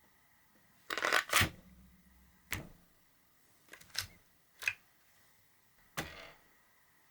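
Sharp clicks and knocks of small hard parts being handled and set down on a tabletop: a quick cluster about a second in, then single knocks at irregular intervals.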